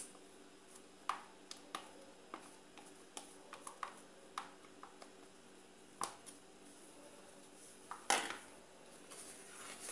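Light clicks and taps of a spatula scraping egg yolks out of a plastic bowl into a stainless steel saucepan, with a short, louder scrape about eight seconds in.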